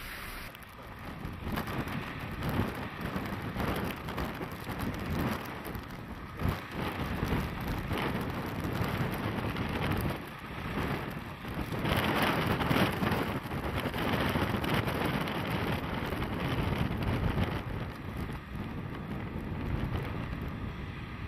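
DD14 rotary snowplow blowing snow off the line, heard from afar as a rough, fluctuating rushing roar of its rotor and engines and the thrown snow, swelling a little past halfway.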